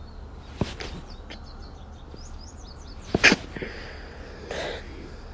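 A young woman sneezes once, sharply and loudly, about three seconds in, followed a second later by a softer breathy sniff.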